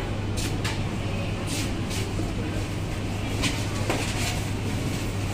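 Supermarket background noise: a steady low hum with scattered light clicks and rustles.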